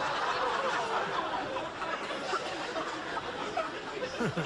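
A theatre audience laughing together, a steady wash of laughter that eases off a little toward the end.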